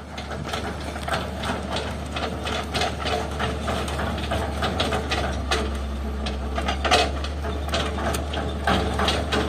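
Heavy diesel engine running steadily, with frequent irregular metallic clanks and knocks, typical of a tracked excavator working.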